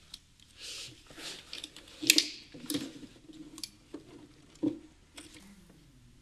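Handling noise: a couple of brief rustles, then scattered sharp clicks and light knocks at irregular intervals, the loudest about two seconds in. These are hands and the handheld camera brushing and knocking against engine-bay parts.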